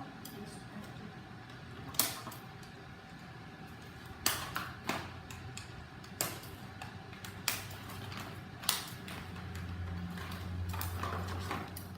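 Scattered sharp clicks and knocks of plastic toy-blaster parts and their cardboard packaging being handled, several seconds apart. A low hum comes in near the end.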